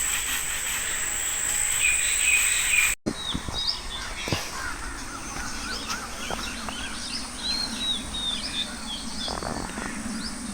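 A steady high-pitched insect drone, like crickets, with a few chirps over it, which cuts off abruptly about three seconds in. After that, many small birds chirp in quick, overlapping calls over a faint low hum.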